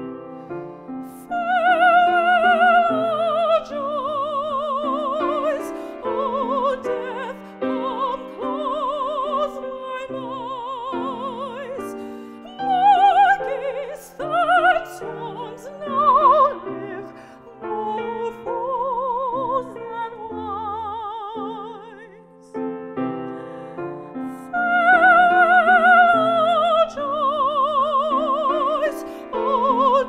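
A woman singing in classical style with a pronounced vibrato, accompanied by a grand piano, phrase after phrase with short breaths between.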